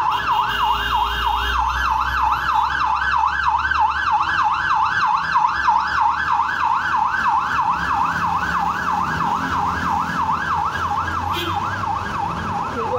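Fire service ambulance siren in a fast yelp, its pitch sweeping up and down about three to four times a second, over the low rumble of traffic.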